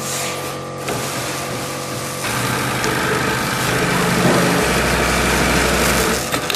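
Automatic pattern sewing machine running steadily with a constant hum; about two seconds in the mechanical noise grows louder, with a deep low hum for about a second and a half near the end.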